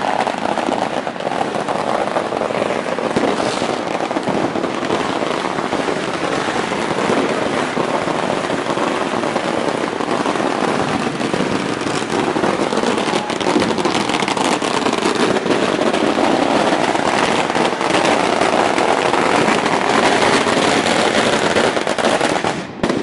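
Dense, continuous crackling and banging of many consumer firecrackers and fireworks going off all around at close range. It falls away sharply just before the end.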